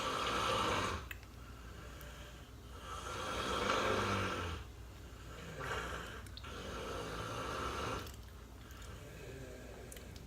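A sleeping person snoring: slow, raspy breaths about every two seconds with a low rattle, the loudest one about four seconds in.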